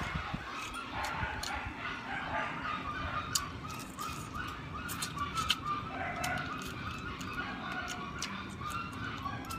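Close mouth sounds of eating by hand, chewing with many sharp clicks and smacks, while chickens cluck in the background.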